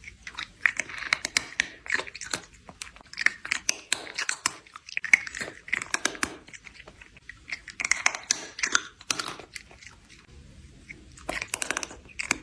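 A cat chewing noisily with its mouth open, a run of wet smacks and crunchy clicks in bouts a second or two long with short pauses between.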